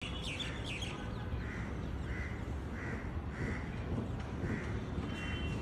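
A bird calling over and over, short harsh calls about every two-thirds of a second, with a few quick higher chirps at the start, over a steady low outdoor rumble.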